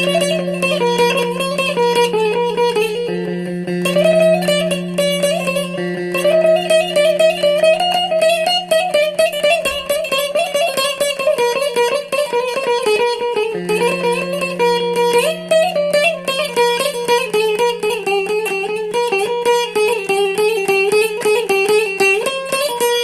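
Instrumental barak tune played on a plucked string instrument: a fast, busily picked melody over a steady drone note. The drone drops out briefly a few times.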